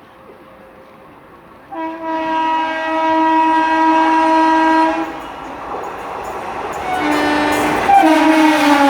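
WAP-4 electric locomotive's horn sounding a long multi-tone blast that starts about two seconds in, followed by the rushing noise of the train running at speed. A second blast comes near the end, and its pitch drops as the locomotive passes.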